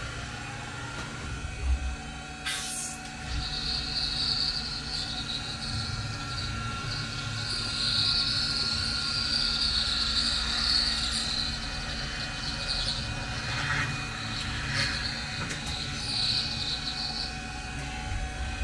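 Tormach 1100MX CNC mill cutting Kydex sheet with a quarter-inch down-cut end mill. The spindle runs steadily while the cut gives a wavering high-pitched whine from about three seconds in until near the end: the chatter typical of milling Kydex. One sharp click comes a couple of seconds in.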